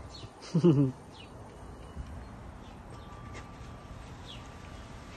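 A short, loud vocal call about half a second in, its pitch rising then falling, then faint high bird chirps a few times over low background noise.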